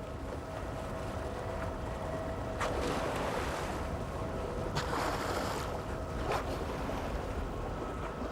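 Steady rush of wind and water on open water, with a faint steady hum underneath and three brief louder swooshes spread through the middle.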